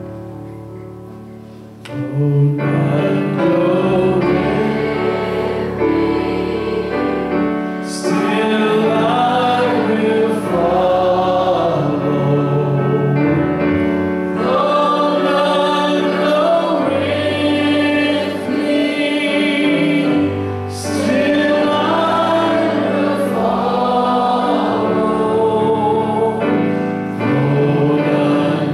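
Congregation singing a hymn together, accompanied by an electric keyboard. Held keyboard chords lead in, and the voices come in about two seconds in and carry on steadily.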